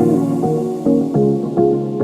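Background music: an upbeat electronic tune with a steady beat.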